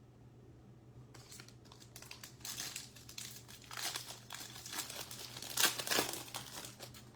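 A trading-card pack wrapper being torn open and crinkled by hand. The crinkling starts about a second in and continues in irregular bursts, loudest near the end.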